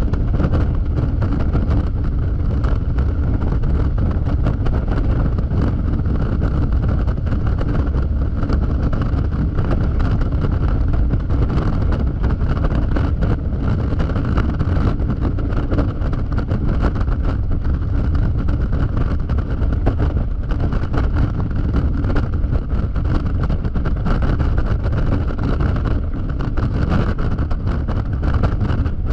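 Steady wind rush and road noise over the microphone from a Yamaha XMAX scooter riding at highway speed, with its single-cylinder engine running evenly underneath.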